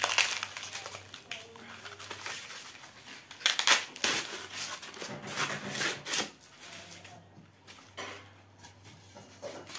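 Cardboard-and-packaging rustling and scraping as a boxed wax burner is unpacked: white inserts being pulled apart, turned and rubbed in the hands, in irregular bursts, loudest right at the start and again around three and a half to four seconds in.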